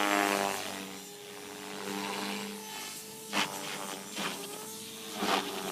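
Mini Protos RC helicopter running with a steady whine that shifts a little in pitch, broken by three short rasping bursts in the second half: the bad sound the owner is chasing.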